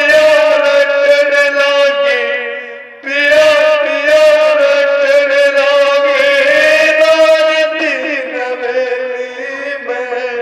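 A man singing a heli, a Haryanvi pre-dawn devotional song, unaccompanied, in long drawn-out held notes with small wavers in pitch. One long phrase breaks off about three seconds in, and a second long phrase follows.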